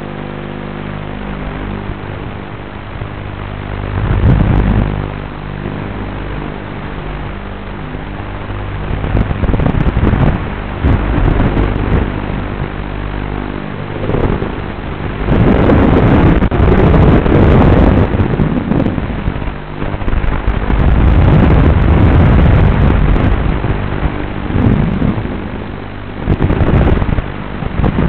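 FPV quadcopter's motors and propellers running: a steady buzz holding one pitch at first, then loud, rough surges that swell and fall from about halfway through as the throttle is worked.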